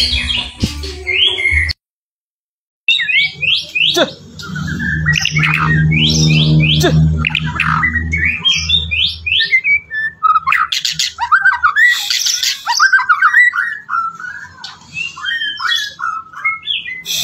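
White-rumped shama (murai batu) singing a fast, varied run of whistles, rising and falling notes and chattering phrases, broken by about a second of silence near the start. A low hum runs underneath for several seconds in the middle.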